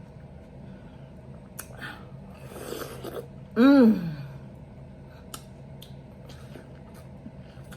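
Wet chewing and small mouth clicks of someone eating juicy watermelon with fruit and whipped cream, with a brief wet noise about two and a half seconds in. Just after it comes a loud hummed 'mmm' of enjoyment that falls in pitch.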